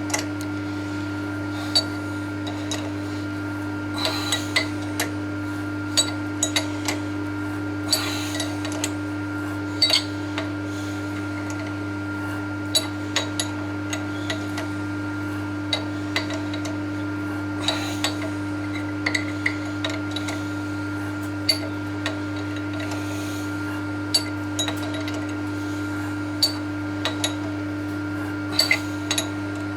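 Machine motor running with a steady hum, with irregular sharp metallic clinks and taps of steel tooling and parts on top of it.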